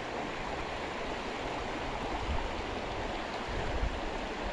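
Steady rush of a shallow stream riffle flowing over gravel, with a couple of brief low buffets of wind on the microphone, one partway through and one near the end.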